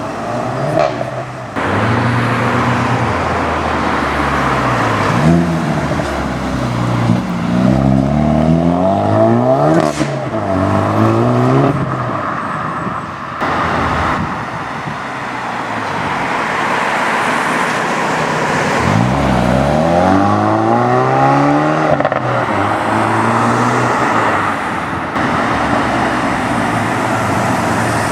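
Hyundai i30N hot hatches with turbocharged 2.0-litre four-cylinder engines accelerating away one after another, the engine note climbing through the revs several times. There is one sharp exhaust crack about ten seconds in.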